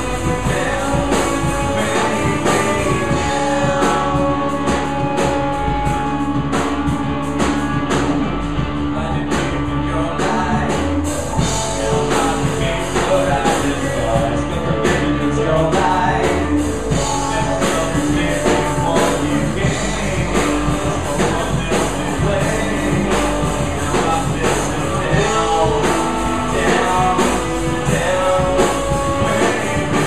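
Live rock band playing: a male vocalist singing over distorted electric guitars and a drum kit keeping a steady beat.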